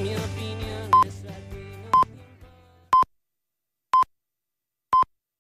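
A radio station's hourly time signal: short, evenly spaced beeps, one a second, five in all. Under them a Spanish-language pop song fades out over the first three seconds.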